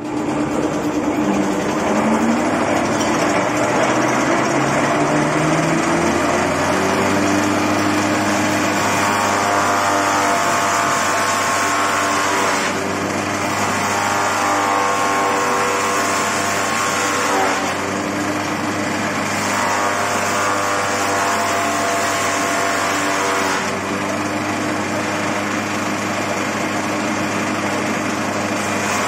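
Electric-motor-driven palm-frond shredder spinning up, its pitch rising over the first six seconds, then running steadily. From about ten seconds its tone shifts every few seconds as it grinds palm fronds fed into the hopper.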